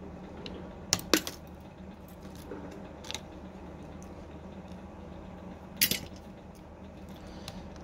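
Small metal clicks and clinks as tweezers pry a phone's loudspeaker module out of its metal frame and the part is set down. There is a double click about a second in, another near three seconds and a sharper one near six seconds, over a steady background hum.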